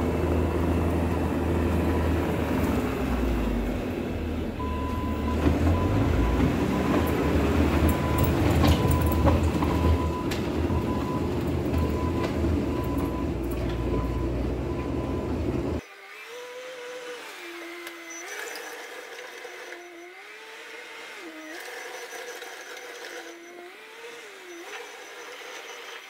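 Bobcat T650 compact track loader's diesel engine running as the machine drives across gravel, loud and heavy at first. About two-thirds of the way through the sound drops suddenly and goes on fainter, its engine pitch rising and falling repeatedly as the throttle changes.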